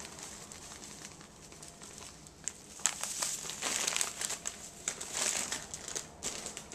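Thin plastic bags crinkling and rustling as they are handled, a run of crackles and sharp ticks starting about two seconds in and stopping near the end.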